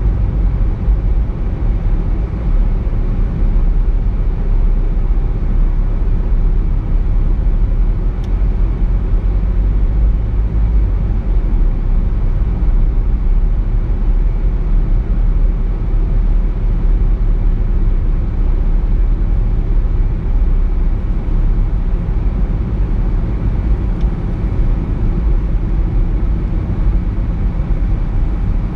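Car driving at a steady pace: a continuous low rumble of engine, tyre and road noise with no change in pitch or level.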